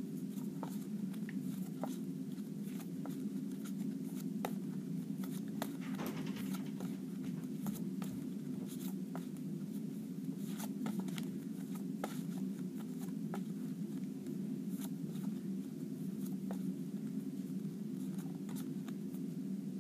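Faint, irregular taps and rustles of paper flashcards being handled and changed one after another in the hands, over a steady low hum of room noise.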